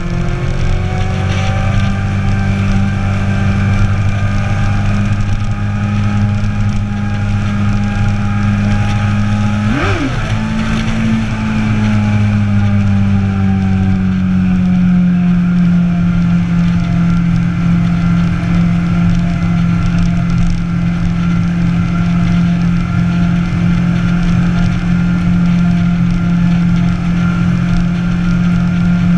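Sport motorcycle engine running at a steady cruise, heard from on board with wind noise. About ten seconds in the engine pitch dips sharply and comes straight back, then settles a little lower for the rest of the ride.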